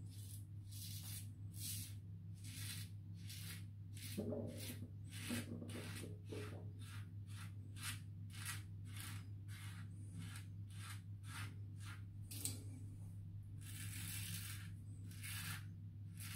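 Razorine Flatboy double-edge safety razor with a Kai blade scraping through lathered stubble on the neck, short rasping strokes at about one and a half a second: the sound of the whiskers being cut. A steady low hum runs underneath.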